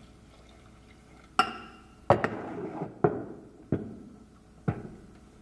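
Five sharp metallic clanks, each ringing briefly: a stainless saucepan knocked against the steel mixing bowl of a stand mixer and set down on the table.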